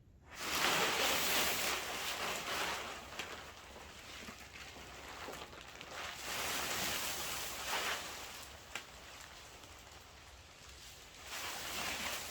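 Gusting wind rustling and buffeting the plastic film of a vinyl greenhouse, a noisy rush that swells and fades in waves a few seconds apart.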